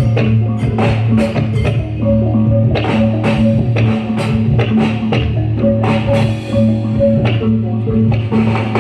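Reog accompaniment music: drums struck in a quick, steady pattern over repeating held pitched tones.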